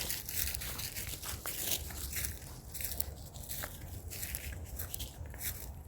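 Footsteps crunching through dry leaves and twigs on a woodland trail, a few irregular steps a second, over a low rumble.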